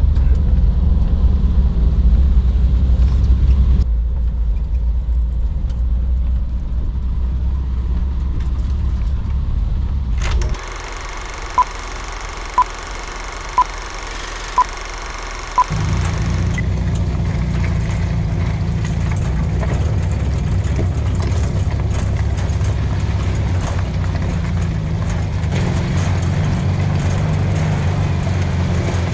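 Vintage split-window VW bus's air-cooled flat-four engine and road noise while driving up a dirt mountain trail, a steady low rumble. About ten seconds in it gives way for several seconds to a hiss with five short beeps about a second apart, then the low engine rumble returns.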